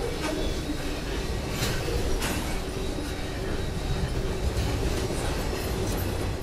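Norfolk Southern double-stack container train rolling past: a steady rumble of the well cars' wheels on the rails, with a few sharp clicks from the wheels over the track.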